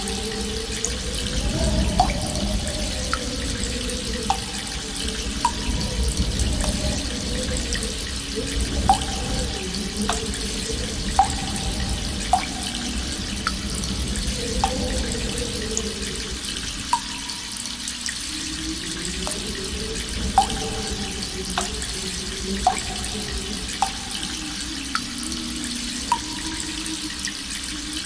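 Cave interior ambience: water drops falling one at a time, irregularly every second or two, each a short pitched drip. Underneath is a steady trickle of a stream and a low, slowly rising and falling moan of wind howling through the cave.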